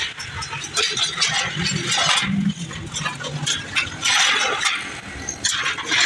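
Sheet metal being handled: scraping and light clinks of galvanized sheet and steel strips, with many short clicks over a busy, noisy background.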